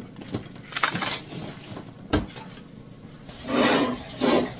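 Cardboard and thin wooden sticks being handled as cake packaging is taken off: a few light clicks, a sharp knock about two seconds in as a piece is set down on the wooden table, then two short rustling scrapes near the end.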